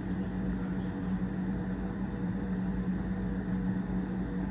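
A steady low mechanical hum with one strong, even tone.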